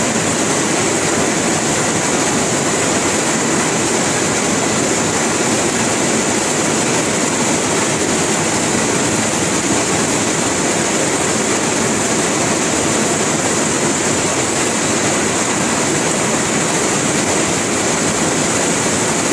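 A textile drying range machine running: a loud, steady mechanical noise with a strong hiss on top.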